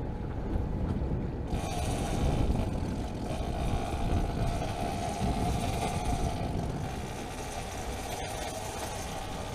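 Boat motor running in reverse. A low rumble runs throughout, and about a second and a half in a steady higher hum and hiss join it as the motor takes up the reverse.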